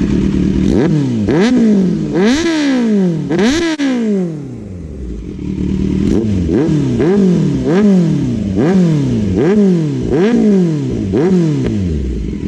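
Kawasaki Z900's inline-four engine with a loud aftermarket exhaust, revved in short throttle blips while standing: a few blips, a brief settle to idle, then a quick run of about a dozen more blips.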